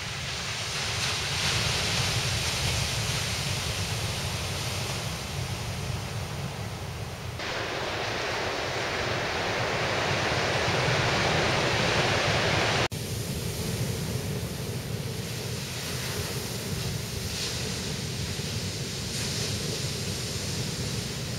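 Wind and ocean surf as a steady rush of noise. The sound changes abruptly twice, about seven and thirteen seconds in, where separate recordings are cut together.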